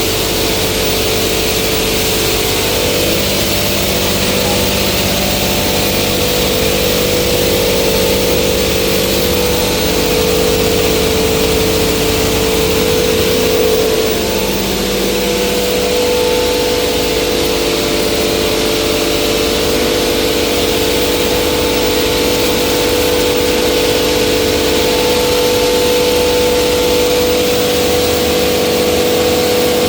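Soybean flour mill (hammer-mill pulverizer) running steadily: a constant hum under a strong even hiss.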